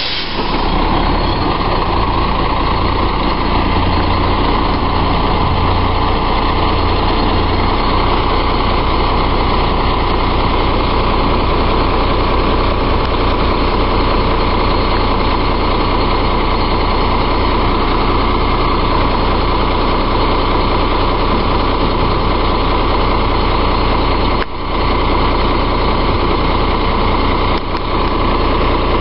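Diesel engine of a Volvo WXLL front-loader garbage truck idling steadily and loudly.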